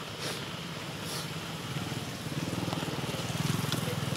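A motor engine running steadily with a fast, even low pulse, growing louder about halfway through.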